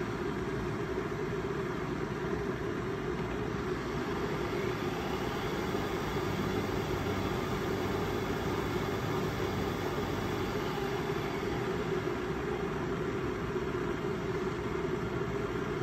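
Steady mechanical running noise: a continuous hum over a low rumble, unchanging throughout.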